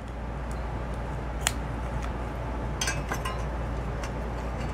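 A screwdriver clicking and scraping against the hub of a small refrigerator fan motor's aluminium blade while the blade is being unscrewed: a few small metallic clicks, the sharpest about a second and a half in and a short cluster around three seconds. A steady low hum runs underneath.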